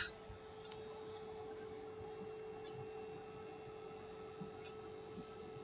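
A faint, steady hum at a single pitch over low background noise, with a few tiny ticks near the end.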